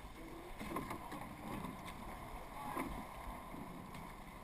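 Surf boat being rowed at sea: water rushing and wind on the microphone, with soft oar strokes about every two seconds.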